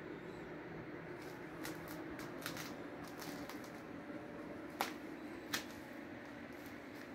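Quiet room tone with a steady low hum, scattered with soft clicks and taps, two of them sharper and close together about five seconds in.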